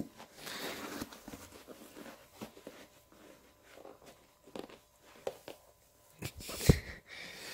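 Handling noise from a sneaker being turned over in the hands: soft rustling with scattered small clicks and scuffs, and one louder thump near the end.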